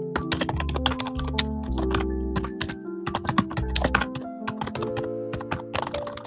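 Mechanical keyboard being typed on in a quick, irregular run of key clicks, over background music with sustained notes and a low bass line.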